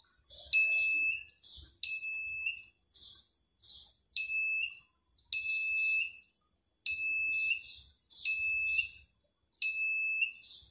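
Small handheld metal detector beeping as its loop coil is swept over and beside a metal bangle: about seven high-pitched electronic beeps, each about half a second long, roughly every one and a half seconds, each beep the detector signalling the metal in range.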